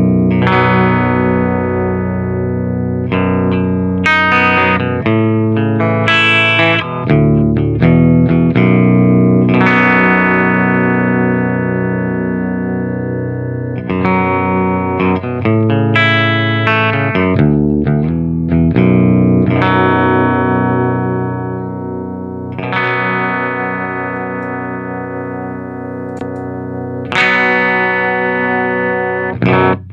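Distorted electric guitar played through a Diezel VH2 tube amplifier and Marshall 4x12 cabinet: chords struck and left to ring, a new chord every one to four seconds, with a few quicker changes in the first seconds.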